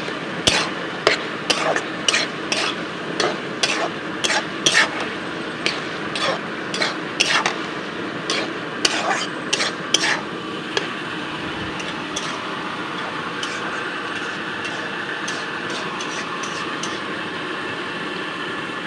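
Metal spatula clinking and scraping against a metal wok as fish head and greens are stirred, about two strikes a second for the first ten seconds, then only a few lighter taps. A steady hiss of frying runs underneath.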